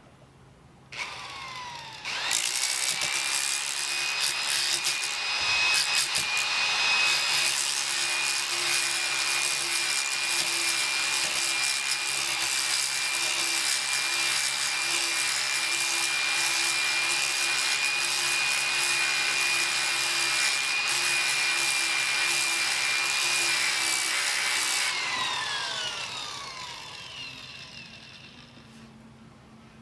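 A grinder grinding down fiberglass patches on an RV's body. It blips briefly, then starts about two seconds in and runs at a steady high whine with harsh grinding noise. Near the end it is switched off and winds down, its whine falling away.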